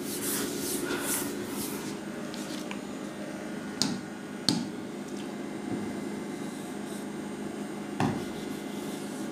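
A hand rubbing over an interactive display's screen in about six quick strokes for the first two seconds, erasing. Then sharp taps of a stylus on the screen, about four and four and a half seconds in and again near the end, over a steady low hum.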